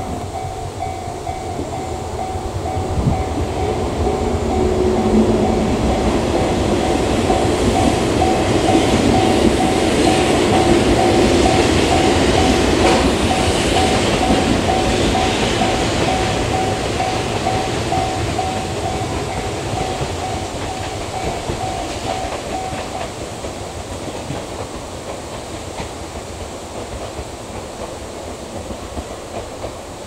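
An electric train passes, its running noise building to a peak about halfway through and fading away. A level-crossing warning bell rings in a steady repeating pattern over it and stops about two-thirds of the way through.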